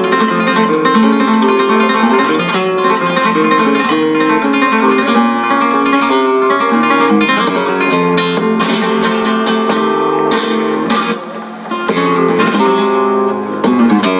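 Flamenco guitar playing solo, an introduction for fandangos: quick picked runs, with loud strummed chords in the second half and a brief drop in loudness about eleven seconds in.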